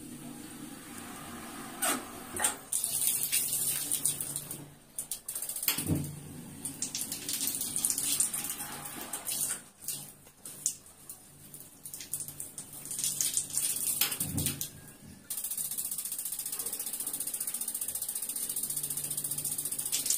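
Water running from a tap fed by a newly installed electronic-ignition gas instant water heater, with scattered clicks and knocks. About fifteen seconds in, a steady, even hiss sets in.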